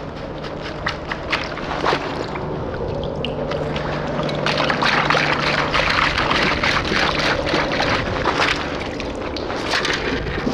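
Perforated metal sand scoop digging into wet beach sand and being shaken, wet sand and water pouring and rattling out through its holes with scattered clicks; the sifting is densest and loudest in the middle few seconds.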